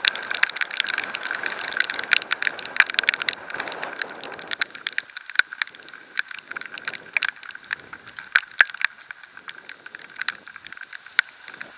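Heavy rain drumming on the camera as sharp, irregular clicks, over a steady hiss of wind and road spray while riding; the lower part of the hiss falls away about four and a half seconds in, while the drop strikes continue.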